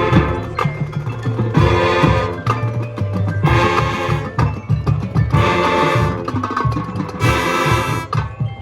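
Marching band playing: loud, sustained brass chords that swell in and out about every second and a half over a driving drumline beat.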